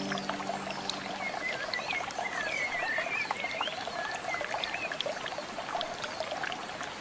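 Chirping animal calls over a steady watery hiss, with background music fading out about a second in.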